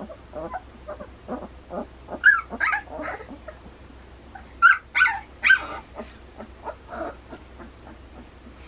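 Litter of puppies about two and a half weeks old whimpering and squealing in short, high-pitched cries, loudest in a cluster about two seconds in and again around five seconds in.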